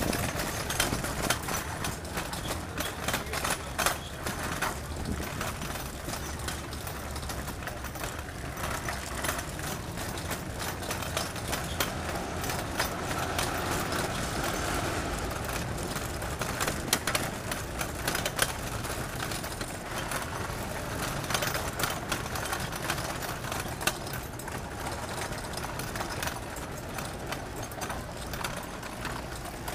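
City street ambience: traffic running steadily, with many short clicks and knocks scattered through it and a louder swell about halfway through.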